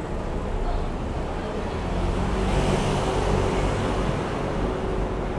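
Road traffic noise at a city crossing, with a car passing by that swells louder about two to four seconds in and then fades.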